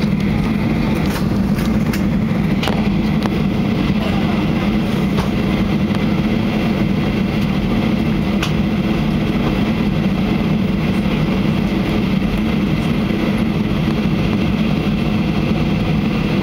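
Steady, even rumble of a Boeing 737-800, its CFM56 jet engines and airframe noise running at a constant level.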